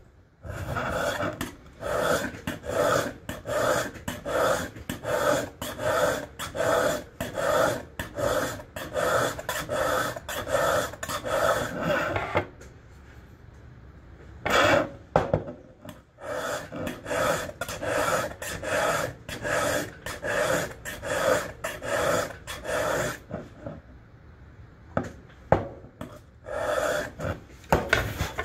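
Mill file draw-filing the bevel of a steel single-bevel broadhead on a bench: steady rasping strokes about two a second, stopping twice for a few seconds. The bevel is being worked out to the full edge until a fine burr forms along it.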